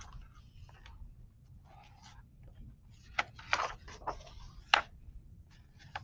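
Pages of a printed pattern book being turned and handled: a few short paper rustles and crackles, the sharpest a little before the end.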